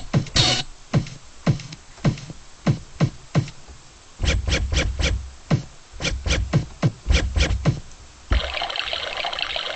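A beat made from sound effects: deep kick-drum thumps that drop in pitch, about every 0.6 seconds, with sharp clicks between them. About eight seconds in, a steady hiss joins.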